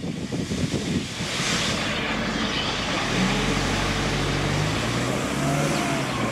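Steam locomotive exhaust beating, about three or four sharp chuffs a second, for the first second; then a steady hiss of steam, joined about three seconds in by a low steady drone.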